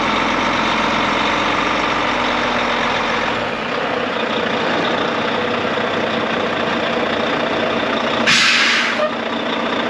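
Diesel engine of a Volvo VNM day cab tractor running as the truck rolls forward slowly, the low engine note dropping away about three and a half seconds in. Near the end there is a short, sharp air-brake hiss, lasting under a second, as the brakes are applied.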